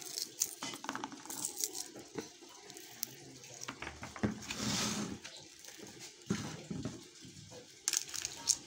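Fresh green pea pods being shelled by hand: crisp snaps and cracks as pods are split open, rustling of the pods, and peas dropping into a plastic colander. A longer stretch of rustling comes a little after the middle.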